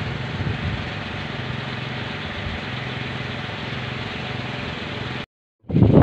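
Kolecers, wooden wind propellers on tall poles, whirring in a strong wind as a steady low drone. The sound cuts off abruptly about five seconds in, then wind buffets the microphone in gusts.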